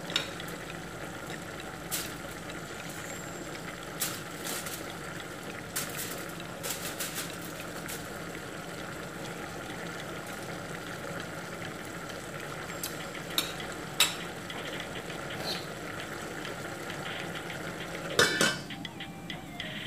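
Chicken and vegetables bubbling in a pot on the hob, with a metal spoon clinking and scraping against the pot as they are stirred. Near the end a glass lid clatters onto the pot.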